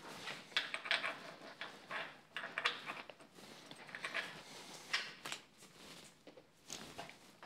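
Light metallic clinks, taps and scrapes at irregular intervals as a motorcycle handlebar clamp and its hex-head bolts are handled and set in place on the bar mount.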